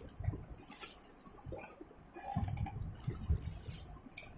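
Books and their packaging being handled: irregular rustling with a few soft knocks, thickest around the middle.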